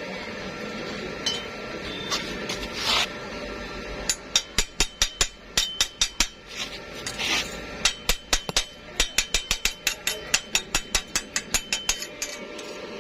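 A hammer striking metal in a rapid series of sharp taps, roughly four a second, after a few scattered knocks at the start.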